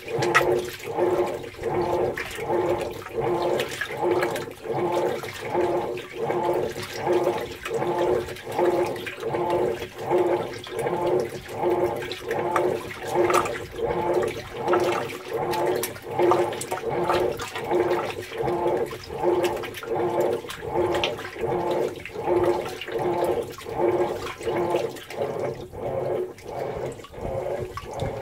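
Whirlpool Cabrio top-loading washing machine agitating a load in deep water with the lid open: water sloshing, with a motor hum that swells and fades in a steady rhythm of about one and a half strokes a second.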